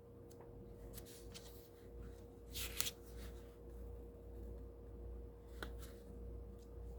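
Pages of a small paper tarot guidebook being turned by hand: a few soft rustles and flicks, the clearest a little under three seconds in, over a faint steady hum.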